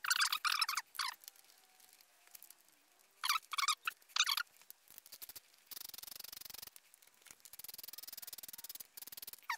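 Ratchet wrench clicking in quick runs while loosening the cylinder-head cover bolts on a BMW R1200GS boxer engine. Short bursts come near the start and about three seconds in, then two longer stretches of fainter, faster ticking later on.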